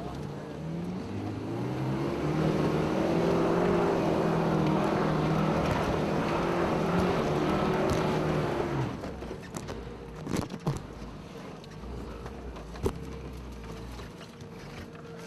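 Off-road 4x4 vehicle's engine pulling hard under load, its note climbing over the first couple of seconds, then holding steady before dropping away about nine seconds in. A few sharp knocks follow.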